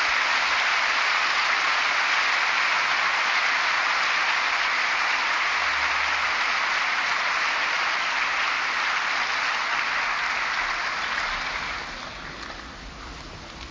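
A large audience applauding steadily, thinning out and dying down near the end.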